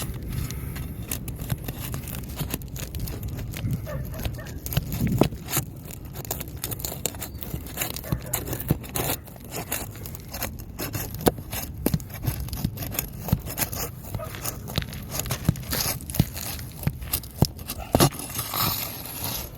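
An asphalt roof shingle being pried loose, with scraping and many short sharp clicks and crackles as its sealant bond tears away from the shingle beneath.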